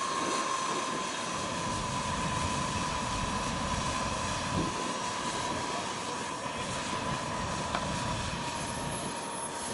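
Xcalibur RC model jet's turbine running on the ground at a low setting: a steady whine over a rushing hiss, its pitch easing slightly lower in the first second or so and then holding.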